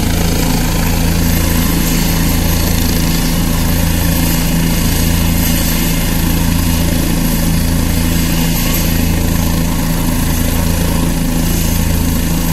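Light turbine helicopter running on the ground ahead of lift-off, its engine and main rotor turning at a steady idle: a steady hum with a slow, regular low throb about once a second.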